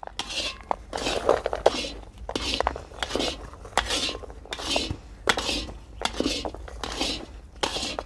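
Metal spatula stirring and scraping thick carrot halwa around a large iron kadhai in repeated strokes, about two a second, with a few sharp metal clicks.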